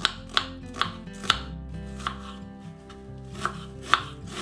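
Kitchen knife dicing an onion, with sharp separate strokes against the board. There are about three quick strokes, a pause of about two seconds, then a few more strokes near the end.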